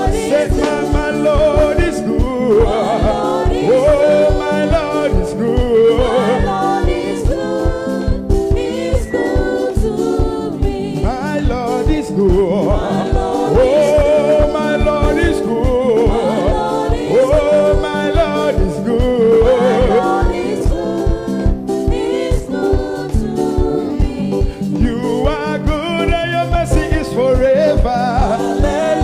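Gospel praise music: voices singing over a band with a steady, fast drum beat.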